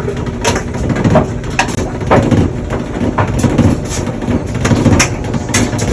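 Maytag Bravo dryer running with a loud rumbling and vibrating noise, irregular knocks and clatter over a steady low rumble. The noise comes from loose pieces stuck inside the dryer.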